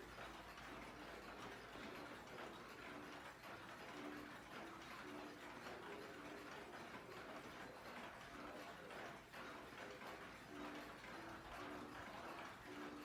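Many antique pendulum clocks ticking at once, their beats overlapping into a dense, uneven patter of ticks. Short low tones come and go in the background.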